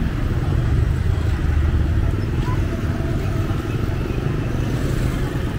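Street traffic: motorbikes and cars running past with a steady low rumble.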